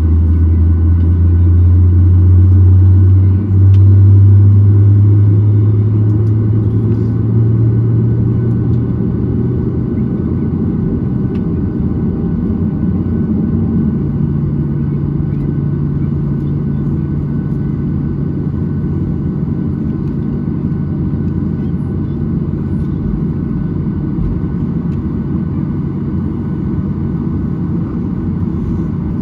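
Boeing 737-800's CFM56-7B jet engines heard from inside the cabin during taxi, a low drone that rises slowly in pitch over the first several seconds as thrust comes up to get the plane rolling, then settles into a steadier, quieter hum.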